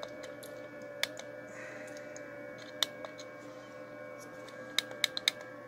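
Sharp plastic clicks of buttons being pressed on a handheld antenna analyser as a frequency is keyed in: single presses about a second and three seconds in, then four in quick succession near the end. Under them runs a steady electrical hum with several fixed tones.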